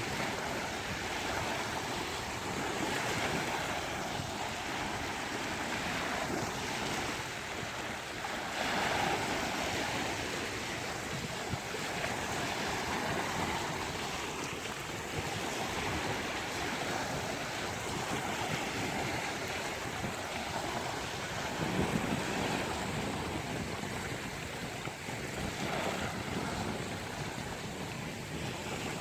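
Sea waves breaking and washing on a beach, a steady rushing surf that swells and eases, with some wind.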